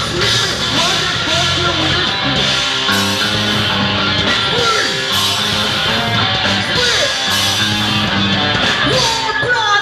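Loud rock music with electric guitar, running steadily throughout.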